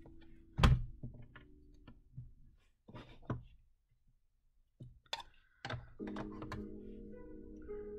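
Craft stamping supplies being handled and set down on a craft mat: one loud thunk about half a second in, then a few lighter taps and clicks. Soft instrumental background music comes in about six seconds in.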